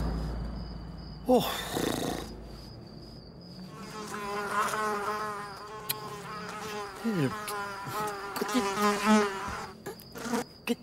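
Cartoon housefly buzzing, its pitch wavering up and down, strongest in the second half.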